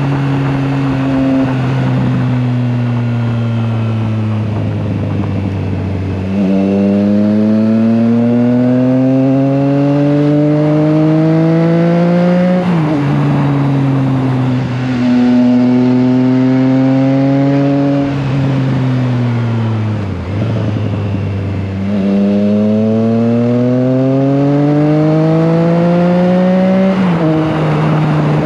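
Triumph Trident 660's inline three-cylinder engine under way. It eases off for the first few seconds, then pulls hard with its pitch climbing until it drops sharply at a gear change, holds steady, falls away, and climbs again in a second hard pull that ends in another sudden drop near the end.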